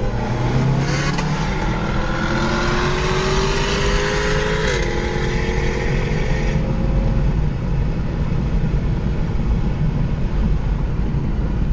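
Volkswagen Golf GTI (Mk7) turbocharged 2.0-litre four-cylinder under hard acceleration in a roll race: the engine note climbs, drops sharply with a quick DSG upshift after about four and a half seconds, and climbs again before easing off around seven seconds, leaving steady road and wind noise.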